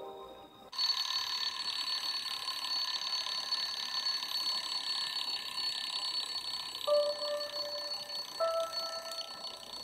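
A sustained high, rapidly rattling electronic ring like an alarm bell, coming from a video playing on a tablet; it starts abruptly just under a second in and runs on steadily, with two short music notes stepping upward near the end.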